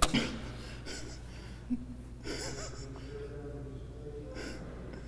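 Quiet, stifled laughter and breath snorted through the nose by someone holding a mouthful of eggnog, with a sharp click at the very start.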